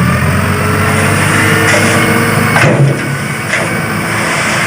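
Truck engine sound effect: a heavy engine running steadily with a low rumble.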